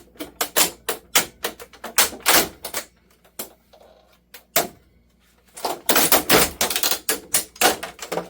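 Plastic parts and circuit board of a CRT television being forced apart: rapid runs of cracking, clacking and rattling. The runs go quiet about three seconds in and start again about two and a half seconds later, the forcing that snaps a part off.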